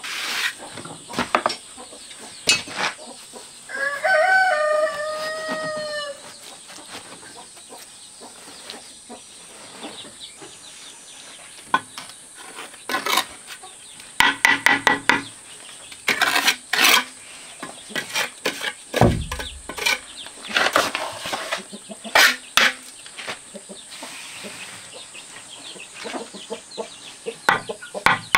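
A rooster crows once, about four seconds in. Later come several bursts of sharp taps as a hand tool knocks red bricks down into wet mortar, with a dull thump in between.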